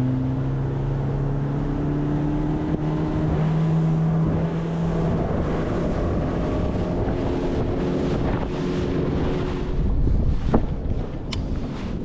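Boat's outboard motor running under way, its pitch climbing over the first few seconds as it speeds up and then holding steady, with wind buffeting the microphone.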